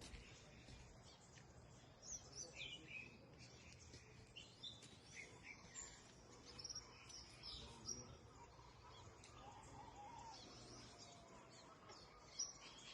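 Birds chirping faintly, short scattered calls over a quiet steady background.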